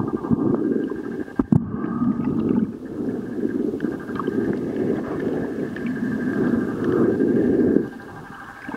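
Low, muffled underwater rumble of moving water picked up by the camera, surging up and down, with one sharp click about a second and a half in.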